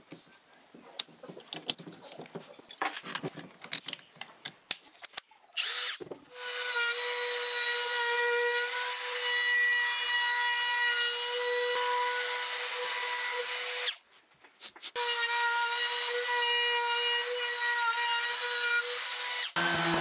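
Clicks and knocks of a Milwaukee M12 FUEL cordless trim router being handled and fitted with a bearing-guided bit, then the router spins up about six seconds in and runs with a steady high whine while it cuts along the edge of a wooden stool top. It stops briefly about two-thirds of the way through and starts again.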